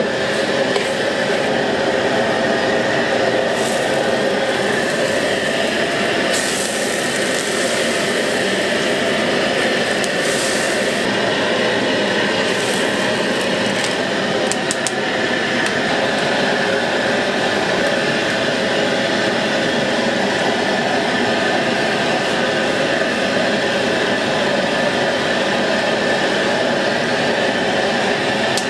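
Steady roar of a commercial gas wok burner, with sizzling and bubbling as a metal ladle stirs vegetables and seafood in the wok for jjamppong. A few brief louder bursts of hissing come in the first half.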